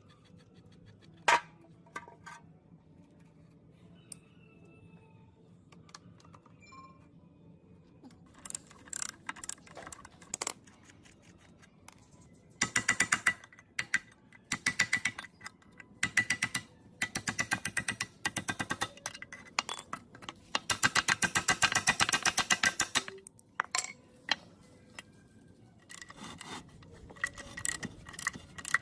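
Metal parts on an old gearbox clicking and rattling under hand work. It starts with a few scattered clicks, then comes in bursts of rapid, evenly spaced clicks, densest and loudest in the middle stretch.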